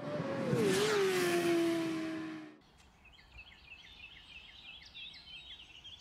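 A loud rushing whoosh with a falling tone that cuts off suddenly about two and a half seconds in, then birds chirping and singing faintly.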